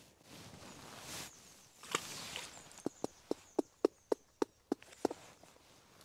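A quick run of about ten sharp clicks, about four a second, starting about three seconds in, over the soft rustle of grass.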